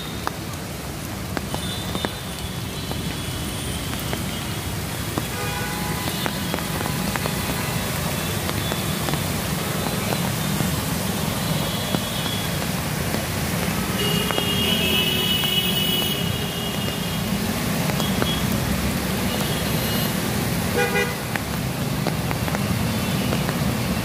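Heavy monsoon rain with steady road traffic on wet streets, a constant rush and low rumble of vehicles. Car horns toot briefly a few times: about a quarter of the way in, around the middle, and again a few seconds before the end.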